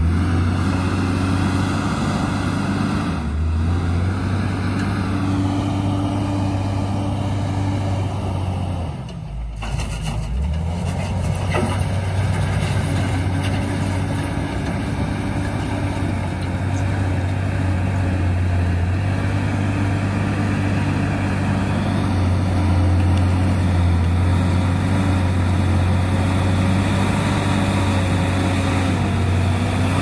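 JCB wheel loader's diesel engine running steadily as the machine levels gravel, a continuous low engine note. About a third of the way in the engine eases off briefly, then picks up again.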